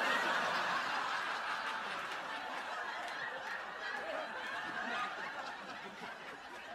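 Studio audience laughing, breaking out all at once and slowly dying down.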